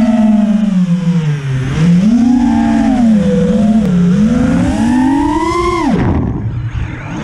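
FPV freestyle quadcopter's brushless motors and propellers whining, the pitch swinging up and down with the throttle. The pitch dives sharply about six seconds in, then climbs again near the end.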